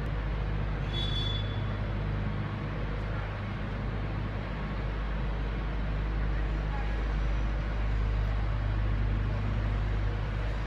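Railway station platform ambience: a steady low mechanical hum with faint background noise. A short high-pitched squeal sounds about a second in.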